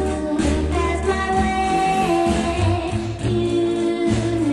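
Early-1960s teen-pop record: a woman singing over a band, with held notes and a steady bass line.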